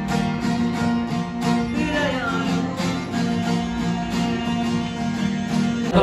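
Acoustic guitar music, strummed in a steady rhythm.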